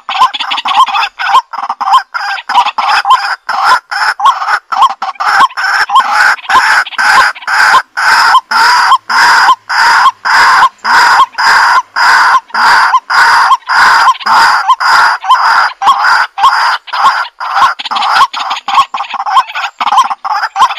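Domestic fowl calling loudly and continuously: a fast run of short repeated calls, about two or three a second.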